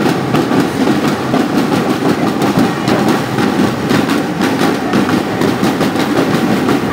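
Marching band drum line playing snare and larger drums, a loud, dense and continuous drumming rhythm.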